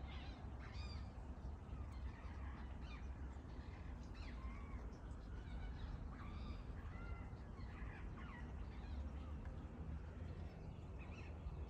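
Birds calling, with many short chirps and gliding notes coming one after another, over a steady low rumble.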